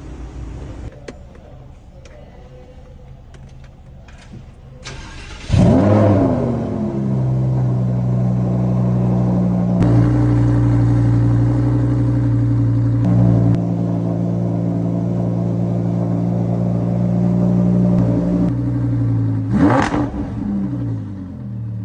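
Lamborghini Huracán's V10 engine firing up with a loud rev flare about five seconds in, then settling into a steady, fast idle. A second short rev blip comes near the end before it drops back.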